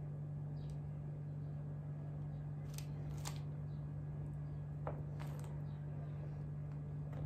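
A metal bench scraper pressing down through soft dough onto a baking tray, giving a few faint taps and scrapes about three and five seconds in, over a steady low hum.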